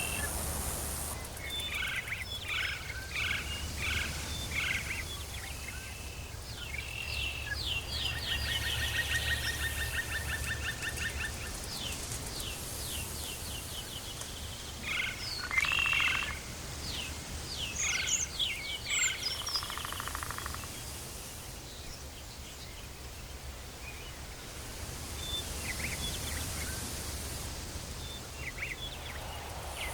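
Tropical forest ambience: animals calling in short repeated chirps and rapid pulsed trills, busiest in the first two-thirds, over a faint high hiss and a steady low hum.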